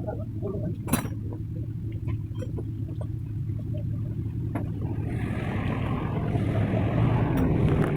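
Small single-cylinder 70cc motorcycle engine, a Honda CD 70, running steadily with a few light clicks, picking up revs from about five seconds in.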